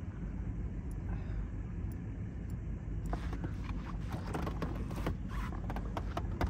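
A hooked catfish splashing and swirling at the surface beside a small boat, with a run of irregular sharp splashes and clicks starting about three seconds in, over a steady low rumble.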